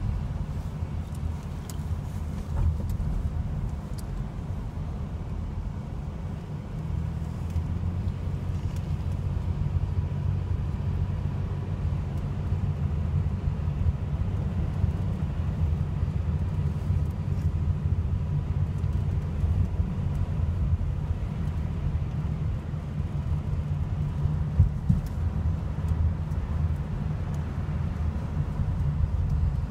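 Car cabin noise while driving: a steady low rumble of engine and tyres, with a few faint ticks.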